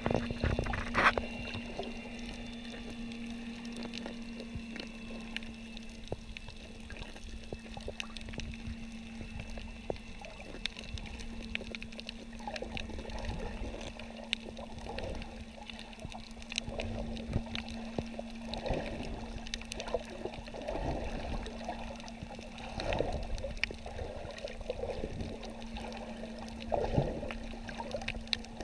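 Underwater sound picked up by a submerged camera over a coral reef: muffled water rushing and sloshing in swells every second or two, with many scattered sharp clicks and a steady low hum.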